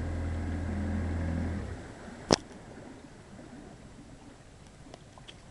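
Small boat's outboard motor running steadily, then shut off or throttled right down a little under two seconds in. About half a second later comes a single sharp knock.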